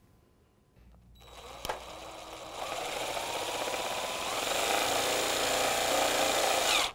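Cordless drill driving a Phillips-head screw through a plastic grille bracket into a clip. It starts about a second in, grows louder as it runs, then stops abruptly at the end.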